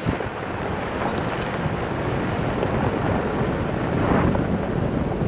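Steady rushing noise with a low rumble, typical of wind buffeting the microphone.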